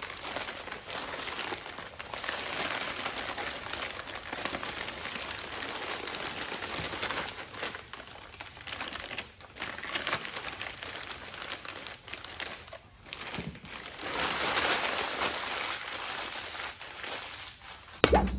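Wrapping being crumpled and pulled off a camera, a continuous crinkling rustle that swells and fades, with a sharp knock just before the end.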